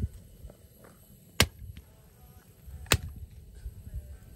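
Wood being chopped for a campfire: two sharp strikes about a second and a half apart.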